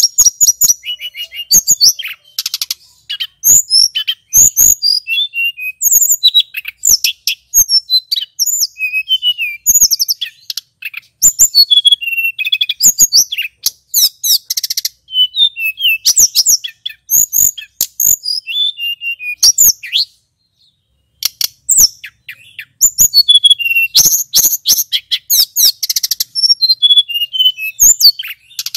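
Male hill blue flycatcher (tledekan gunung) singing a fast, varied song of chirps, trills and gliding whistles, with one short pause about two-thirds of the way through.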